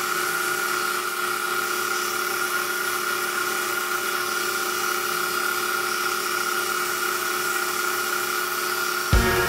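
Small electric motor of a homemade lathe running at a steady, high-pitched whine while the spinning wooden chess rook is sanded by hand with sandpaper. Near the end the sound breaks off abruptly into louder knocks.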